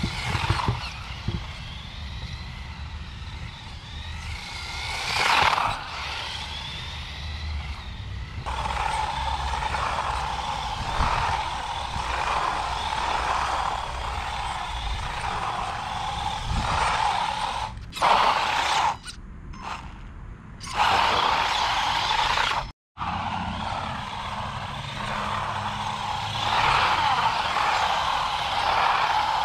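RC monster truck's motor whining steadily while its tyres scrub and slide on asphalt, broken by a few abrupt cuts.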